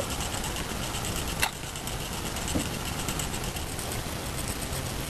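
Spinning reel being cranked to retrieve line: a rapid, even mechanical ticking of the reel's gears, with one sharp click about a second and a half in. A low steady rumble runs underneath.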